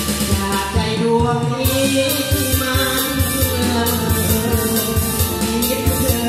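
Live band playing a Thai luk thung song: a man singing through a microphone over guitar, keyboard and a steady drum beat.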